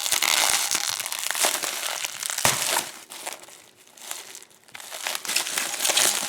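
Packaging being crinkled and unwrapped by hand: a dense crackle that drops away for about two seconds midway, then starts again.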